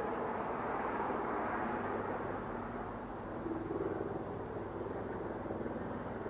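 Electric drill running, its bit grinding a hole into a glass jar kept wet with oil; the tone shifts slightly about halfway through.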